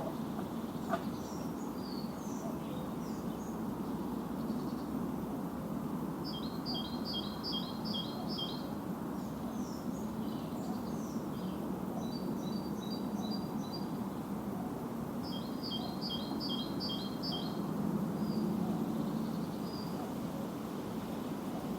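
Songbirds singing, with three runs of quick repeated paired notes and some scattered calls, over a steady low background rumble.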